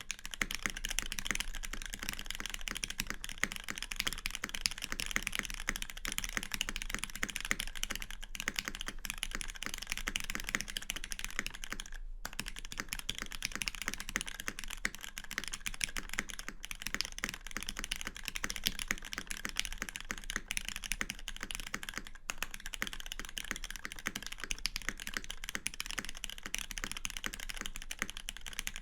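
Continuous fast typing on a Lin Dolphin V3 mechanical keyboard with an aluminum plate, Krytox 205g0-lubed Cherry MX Black linear switches and GMK keycaps: a dense stream of keystrokes with brief breaks about 8, 12 and 22 seconds in.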